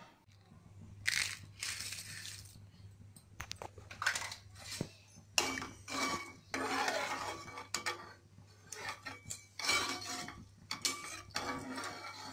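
Metal ladle stirring water in an aluminium pot, scraping and clinking against the sides and bottom in irregular strokes, with the water swishing.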